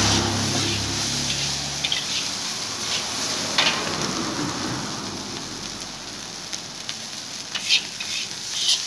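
Chicken fried rice sizzling in a hot wok as it is stir-fried with a metal spatula: a steady frying hiss with scraping, and a few sharp clinks of the spatula against the wok, two of them near the end.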